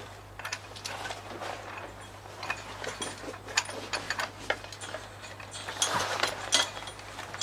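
Irregular light metallic clinks and rattles as a chain caught on the back of the water pump pulley is worked free, with a steady low hum underneath.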